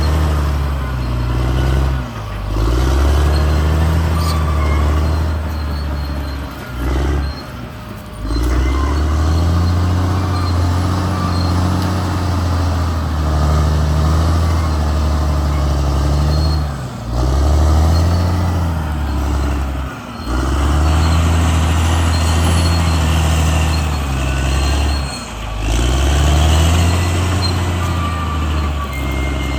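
CAT D6R XL bulldozer's diesel engine running hard. Its note dips briefly several times and then climbs back.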